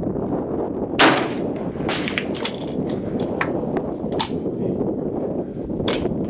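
A single rifle shot about a second in, then a run of sharp metallic clicks and clacks from the rifle being handled.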